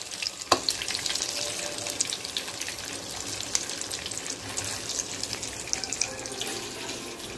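Marinated boiled eggs frying in shallow oil in a small saucepan: a steady sizzle full of small crackles and pops.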